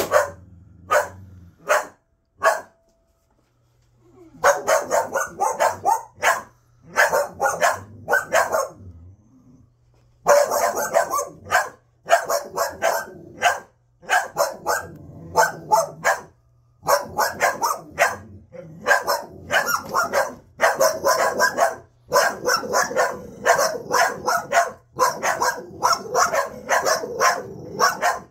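Pit bulls barking at a vacuum cleaner: a few single barks, a short pause, then long fast volleys of barking with only brief breaks.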